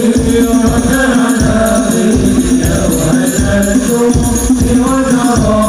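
Hadroh ensemble performing sholawat: voices singing a devotional melody together over a steady beat of rebana frame drums.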